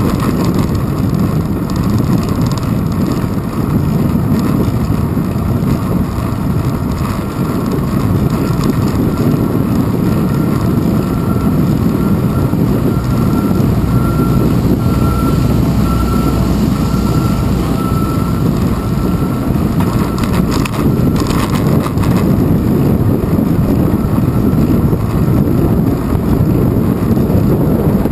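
Wind buffeting a handlebar-mounted GoPro Hero 2 on a moving bicycle in a strong wind, a steady low rumble mixed with the bike's road noise.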